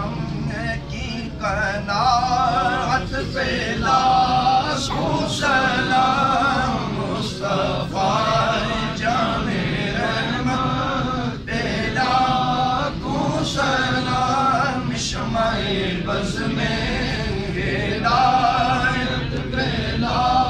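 A man's voice chanting an Islamic devotional recitation, unaccompanied, in drawn-out melodic phrases with short breaks between them.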